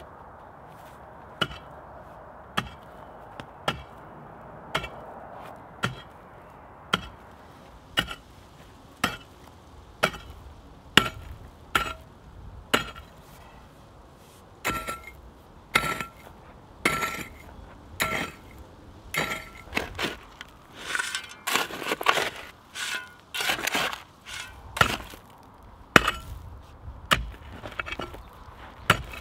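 Hand-forged pickaxe striking into stony soil in steady swings about once a second, each blow a sharp hit with a short metallic ring. In the second half the blows come faster, mixed with loose earth scraping and crumbling.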